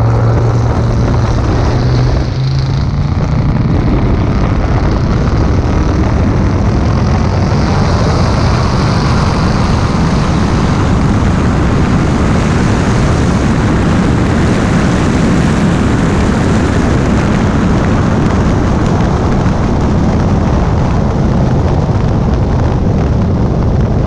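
Twin-turbo 427 ci LS V8 of a 1961 Buick Skylark, heard from a hood-mounted camera. It runs with a steady low note for about two seconds, then goes to full throttle and stays loud and even through a high-speed pass of roughly 180 mph.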